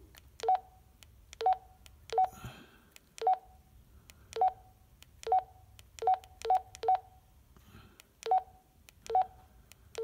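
Baofeng handheld transceiver's key beeps: about eleven short, same-pitched beeps at an uneven pace as its menu is scrolled one button press at a time, each with a faint click of the key.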